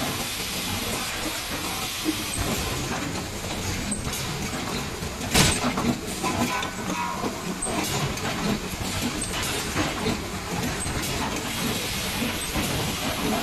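Pneumatic LED bulb assembly machine running: a steady mechanical noise with air hiss and light clicks from its actuators, and a short, loud sharp burst about five and a half seconds in.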